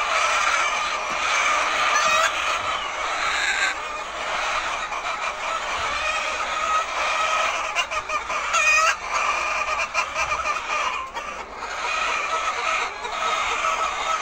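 A large flock of laying hens clucking and calling together in a steady, dense chatter, with a few sharp clicks about eight to nine seconds in.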